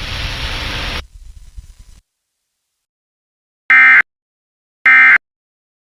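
Radio static hiss that drops away about a second in, then three short, harsh, screeching digital data bursts about a second apart: the EAS SAME end-of-message codes that close an emergency alert broadcast.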